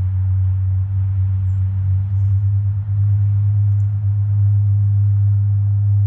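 A steady low hum with a faint hiss behind it.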